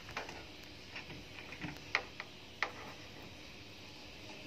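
Lever handle and latch of a steel security door being worked by hand: a handful of sharp metal clicks, irregularly spaced, the loudest about two seconds in.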